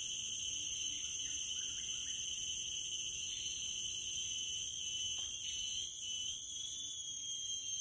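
A steady, shrill insect drone in several high-pitched tones, rising slightly in pitch near the end.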